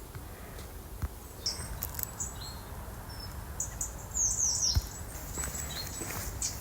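Small birds calling with high, thin chirps, with a quick run of short descending notes about four seconds in, and a couple of faint low thumps.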